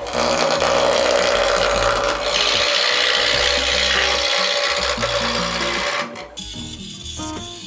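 Wood lathe spinning a spindle blank while a turning tool cuts along it: a steady rasping hiss of wood being shaved off, which eases about six seconds in. Background music with low bass notes runs underneath.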